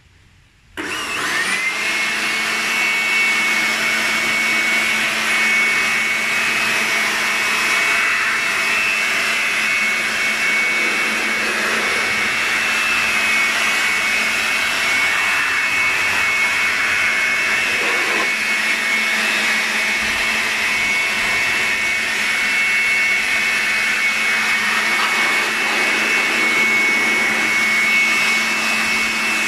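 Total TB2046 400 W electric aspirator blower switched on about a second in, its motor whine rising quickly to speed, then running steadily at full speed with a high whine over the rush of air.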